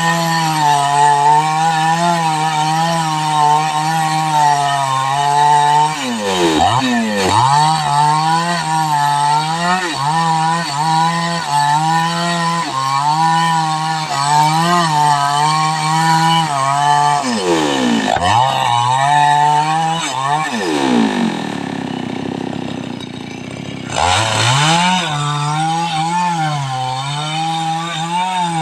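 Two-stroke chainsaw running at high revs while cutting mahogany, its engine pitch wavering under load. The pitch dips sharply and climbs back about six seconds in and again around eighteen seconds; from about twenty-one seconds the saw drops to a lower, quieter running, then revs back up a few seconds later.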